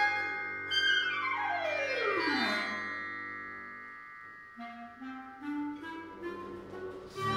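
Solo clarinet with a small chamber ensemble in contemporary concert music. A loud entry about a second in is followed by a long sweep down in pitch that fades out, then short low notes climb upward before a loud ensemble entry at the very end.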